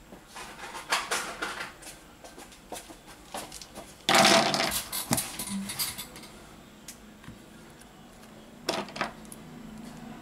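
Plastic spring clamps being handled and clipped onto the edges of a smartphone to hold its freshly glued display and back cover while the glue sets: scattered light clicks and knocks, with a louder rattle of about a second some four seconds in.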